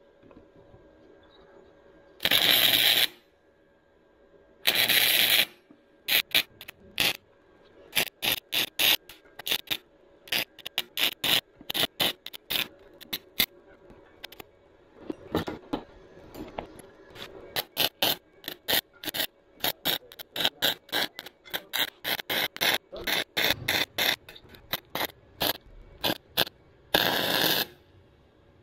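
Harbor Freight Titanium 125 flux-core wire welder's arc crackling in short bursts as a broken 3/16-inch steel mower-deck bracket is welded: two tacks of under a second near the start, then a long run of quick stitch welds, several a second at times, and a last longer tack near the end.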